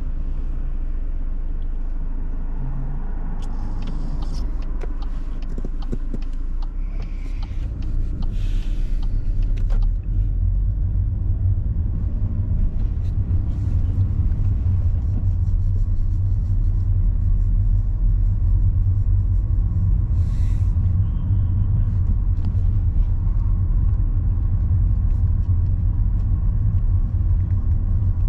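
Engine and road rumble inside a car, a steady low drone that grows louder about seven seconds in as the car picks up speed.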